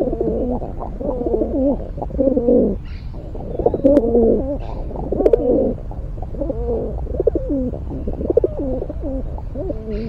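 Rock pigeons cooing, a near-continuous run of low, wavering coos one after another, with two sharp clicks near the middle.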